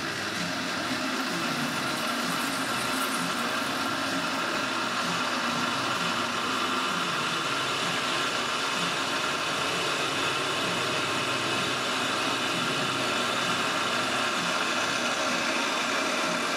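Metal lathe running steadily while a 20 mm twist drill bores into the spinning workpiece: a constant machine hum with held whining tones and the cutting noise of the drill.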